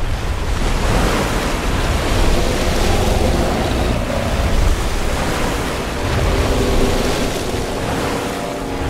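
Crashing water from a giant ape's hand slamming into a river: a loud rush of spray and surf over a deep rumble, starting abruptly and running on without a break.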